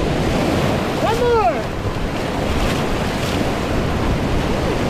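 Whitewater rapids rushing around a paddle raft, a loud, even rush of water with wind buffeting the microphone. About a second in, a short rising-and-falling whoop from a person's voice.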